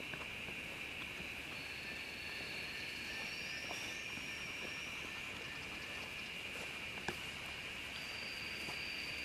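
Steady high-pitched insect chorus, with thin higher tones that step up in pitch now and then. A single sharp click about seven seconds in.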